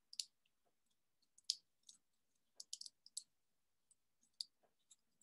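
Faint, irregular crinkling clicks from fingers pulling and stretching a thin, papery egg membrane, the skin left after the shell was dissolved in vinegar.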